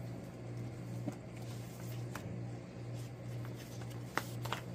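Thick folded poster maps being handled and unfolded: light paper rustling with a few soft crinkles and taps, over a steady low hum.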